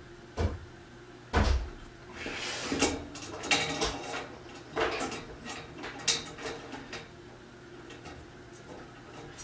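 Metal cross-brace bars and small bolts being fitted to a metal shelving frame: two dull thumps, then scraping and rattling with a few sharp clicks, quieter near the end.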